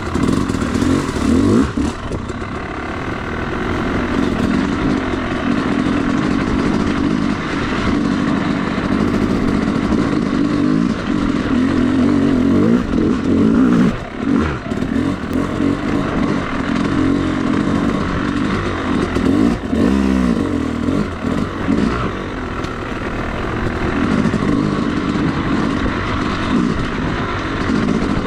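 Yamaha YZ250 two-stroke dirt bike engine under way, its pitch rising and falling again and again as the throttle is opened and rolled off. The engine briefly drops away about halfway through.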